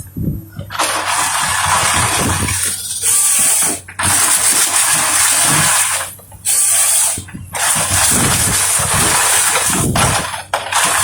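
Forestry harvester running loud, a dense mechanical din from its engine and working machinery, broken by a few sudden brief dropouts.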